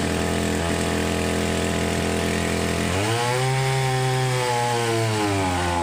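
A small engine running steadily; its speed rises about three seconds in, holds at a higher pitch, then drops back near the end.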